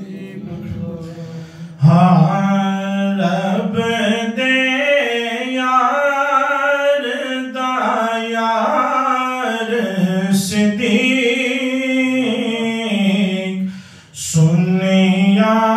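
A man singing an unaccompanied Islamic devotional chant (manqabat), drawing out long, wavering ornamented notes. The voice grows louder about two seconds in and breaks off briefly near the end before starting again.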